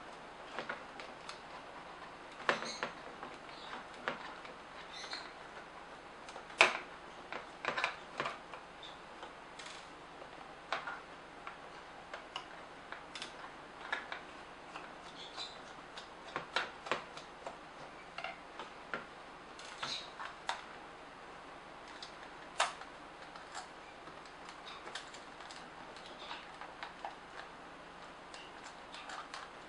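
Screwdriver working screws out of a Nikon SB900 flash's plastic housing: irregular small clicks and ticks of metal tool on screw and plastic as parts are handled, with the sharpest click about six and a half seconds in.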